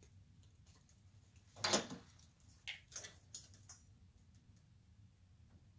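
Pliers clipping and stripping lamp wire: one louder, short scraping snip about a second and a half in, then a few sharp clicks over the next two seconds.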